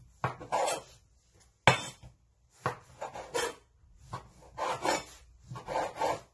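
Chef's knife sawing through a dry, stale baguette on a wooden cutting board: a rasping crunch of crust in about five separate strokes, with a sharp knock of the blade against the board a little under two seconds in.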